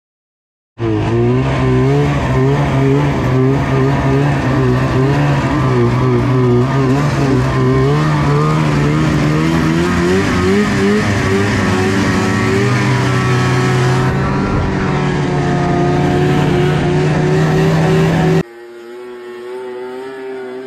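Snowmobile engine running hard with the rider aboard, loud, its pitch wavering and stepping up and down. About eighteen seconds in it cuts abruptly to a quieter, steadier snowmobile engine heard from farther off.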